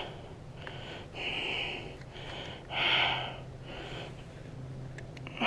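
A man breathing heavily through the nose: a few separate loud breaths or sniffs about a second and a half apart, the loudest about three seconds in.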